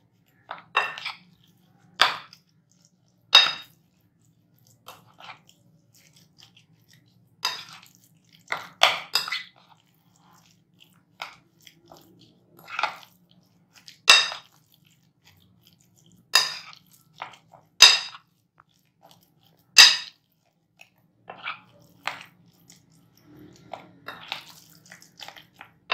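Metal spoon stirring wet raw minced beef in a glass bowl: short, irregular scrapes and clinks against the glass, one every second or two.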